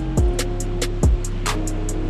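Background music with a drum beat and held pitched notes.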